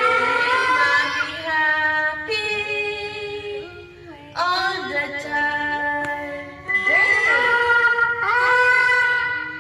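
A woman and a one-year-old girl singing together in long held notes, the toddler vocalizing wordless sounds along with her mother. New notes begin about every two seconds, sometimes with both voices on different pitches at once.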